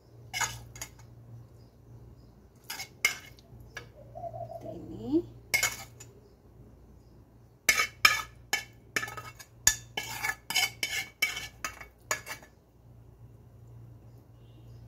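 Metal utensil scraping and tapping cooked chicken out of a nonstick frying pan into a glass baking dish. A few scattered clicks come first, then a quick run of taps and scrapes from about eight to twelve seconds in.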